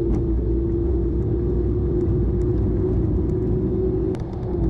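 Toyota Tacoma pickup driving slowly on a dirt road, heard from inside the cab: a steady engine drone over a low rumble from the stock tyres on the dirt, easing briefly about four seconds in.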